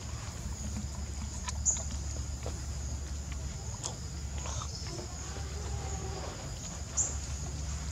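Outdoor ambience: a steady low rumble under a steady high hiss, with two short, sharp high-pitched chirps, about two seconds in and near the end.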